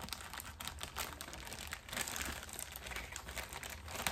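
Packaging crinkling and rustling in the hands, a dense run of small irregular rustles and clicks, as skeins of embroidery floss are unpacked and sorted.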